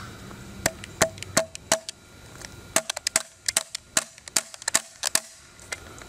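A small nail being tapped into a weathered wooden board with the base of a Polish AK-47 magazine used as a hammer: four spaced taps, then a quicker run of about a dozen taps, many with a short ringing note.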